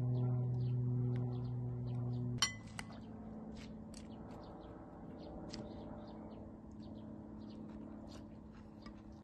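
A spoon clinks sharply against a bowl about two and a half seconds in, with a second, lighter clink just after. Steady droning background music runs underneath, shifting to a lower tone at the clink, with faint small ticks scattered throughout.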